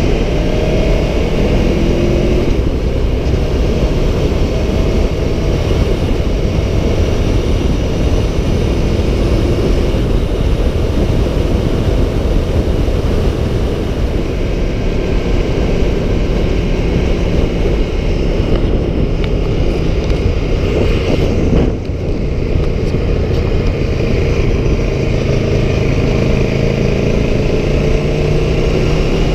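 Aprilia Tuono 1100 Factory's V4 engine running under way, mixed with heavy wind rush on the microphone, its pitch slowly rising and falling with the throttle. The level dips briefly about three-quarters of the way through.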